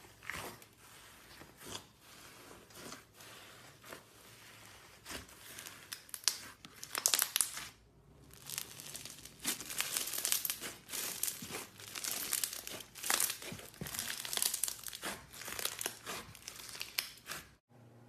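Clear slime being squeezed and stretched by hand, a dense run of crackling and popping with a short lull about eight seconds in. The sound cuts off abruptly just before the end.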